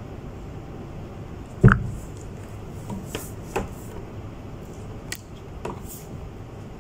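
Large hardcover picture books being handled: one loud thump about a second and a half in, then several lighter knocks and rustles as another book is picked up and opened.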